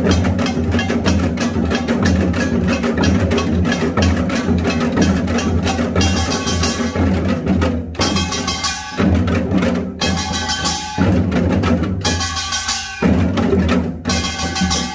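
Korean pungmul percussion ensemble, gongs and drums, playing a Yeongnam nongak rhythm in fast, dense strokes over a strong low ring. From about six seconds in, the playing breaks off briefly about every two seconds, and ringing gong tones carry between the strokes.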